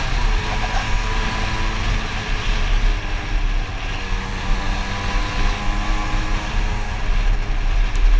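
Motorcycle engine running while riding along a street, its pitch shifting with the throttle, with heavy wind rumble on the helmet-mounted microphone.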